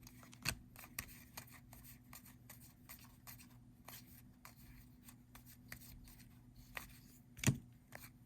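Cardboard football trading cards being handled and flicked through one by one: a run of soft, irregular clicks, with one sharper tap about seven and a half seconds in, over a faint steady hum.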